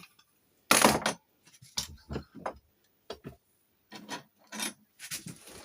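A hand file rasping on a metal key blank in a handful of separate, irregular strokes, taking the blank down while impressioning a lever lock.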